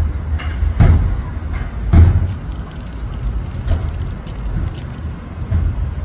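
A chair rammed against a door at its lock: two heavy thuds about a second apart, then fainter knocks and rattles.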